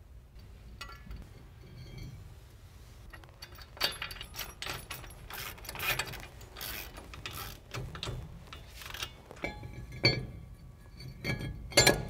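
Hand ratchet clicking on the brake caliper mounting bracket bolts, with steel brake parts clinking and scraping as they are handled; a couple of sharper metal clinks come near the end.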